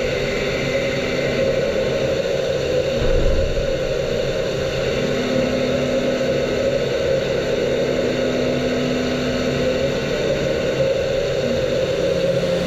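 A 60 HP Makino machining center's spindle running a 90° chamfer mill at about 2,100 rpm, chamfering drilled holes in a cast iron tombstone under coolant. A steady machine whir with a steady hum-like tone, and a second fainter tone in the middle.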